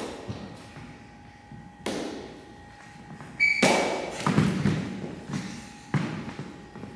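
A series of knocks and thuds from a staged sword fight on a wooden gym floor: practice swords striking and bodies dropping to their knees on the floor, the loudest thumps in the middle, with a short sneaker squeak just before them.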